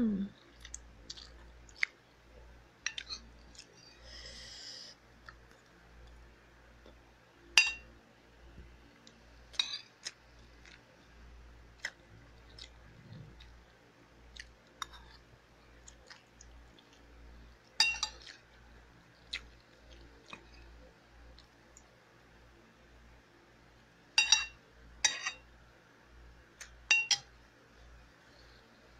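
Someone eating noodles: soft chewing and mouth clicks, with a metal spoon clinking against the bowl several times, the loudest clinks near the middle and toward the end.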